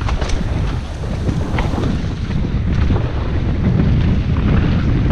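Wind buffeting a helmet camera's microphone at speed, over the low rumble of a mountain bike's tyres on a rough, muddy trail, with scattered short knocks and rattles from the bike.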